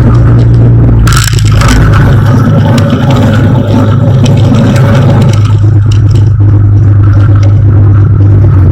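Light aircraft's piston engine and propeller running with a loud, steady low drone, mixed with scraping and rattling noises. The drone's pitch shifts slightly about five and a half seconds in.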